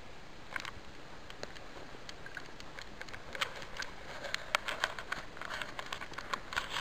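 Footsteps on dry forest ground of grass, pine needles and twigs: a run of irregular soft clicks and crackles that grow busier about three seconds in.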